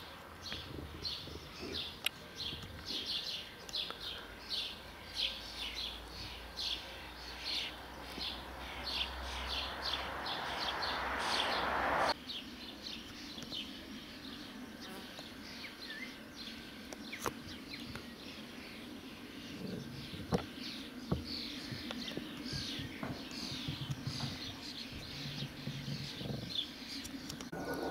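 Small birds chirping outdoors, a quick run of short high chirps several times a second that thins out after the first half. Under it a rushing noise swells and then cuts off abruptly about twelve seconds in.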